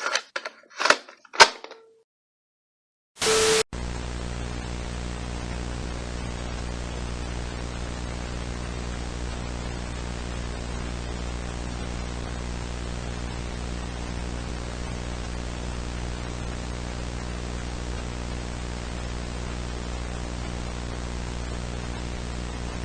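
Three short bursts of EAS end-of-message data tones, then after a moment of silence a brief loud burst of static. Steady hissing static with a low electrical hum follows, like a dead broadcast channel.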